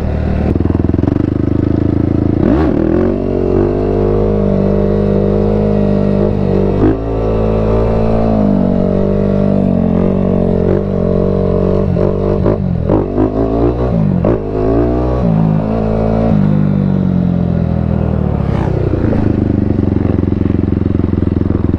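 Yamaha sport quad's engine running under throttle while riding, its pitch rising and falling as the throttle opens and closes, with a few quick revs in the middle.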